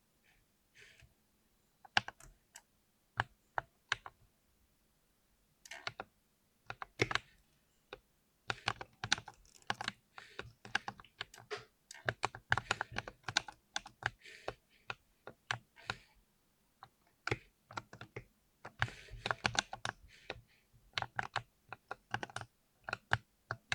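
Mechanical keyboard with Cherry MX Silver linear switches being typed on fast and erratically, keys clacking in irregular flurries. A few scattered keystrokes come first, then dense rapid bursts from about a third of the way in.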